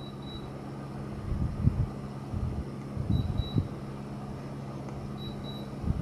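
Quiet room tone: a steady low hum, a few soft bumps, and three faint, short high-pitched blips spread through.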